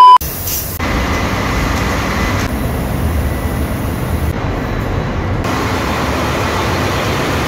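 Loud, steady drone of a ship's engine-room machinery with diesel generators running, cut together from several short clips so the noise shifts in tone at each cut.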